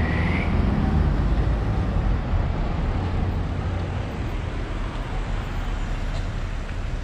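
Street traffic: car engines running and passing on a town street, a steady low noise throughout.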